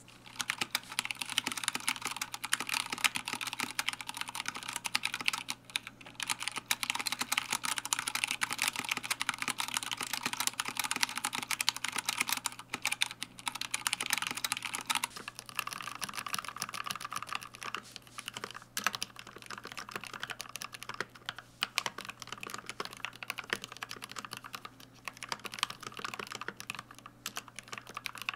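Continuous two-handed typing on a Drop ALT mechanical keyboard with Gateron Brown tactile switches, dense fast keystrokes. About halfway through it changes to typing on a Vissles V84 with linear switches, the keystrokes a little quieter and duller.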